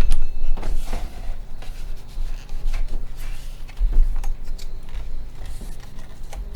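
Scattered light clicks, knocks and rubbing at irregular moments from tools and parts being handled, with a low rumble underneath.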